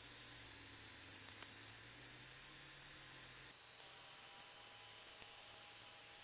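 Metal lathe running unloaded: a steady, faint high-pitched electrical whine over a low hum, the tone shifting slightly about halfway through, with one faint click.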